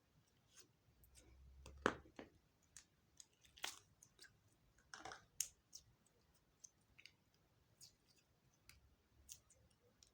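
Clear slime being mixed and squished by hand: soft, irregular clicks and small pops, the loudest about two seconds in.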